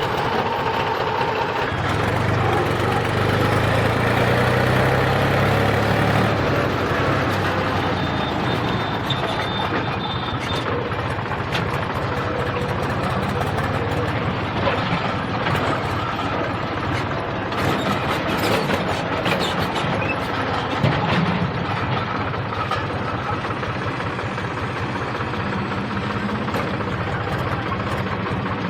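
Heavy diesel machinery running steadily, its engine note rising and falling with load, with scattered sharp clatters and knocks through the middle stretch.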